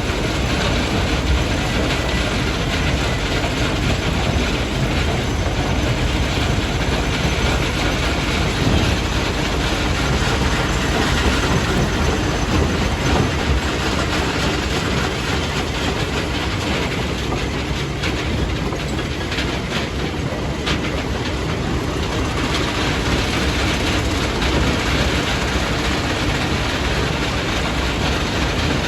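Stone crusher running under load, crushing rock: a loud, unbroken grinding clatter of many small knocks and rattles.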